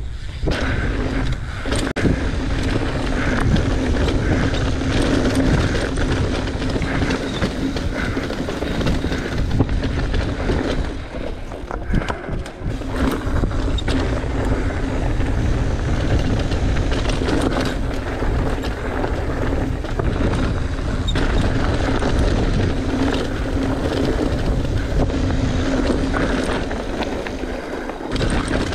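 Mountain bike descending a rooty, rocky, dusty downhill trail at speed: knobby tyres on dirt and gravel, the bike rattling over bumps, and steady wind noise on the microphone. The noise eases briefly about halfway through.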